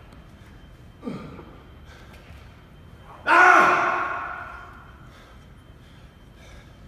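A man's voice, out of breath after a hard set of push-ups: a short grunt falling in pitch about a second in, then a loud, drawn-out gasping exhale at about three seconds that drops in pitch and fades away.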